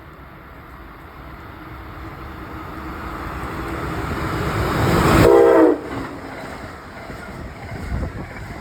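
Amtrak Northeast Regional train approaching at speed, its rumble building steadily for about five seconds, then a short, loud blast of the locomotive horn as it reaches the platform, echoing off the station's metal roof. The rush of the passing train and wind noise follow.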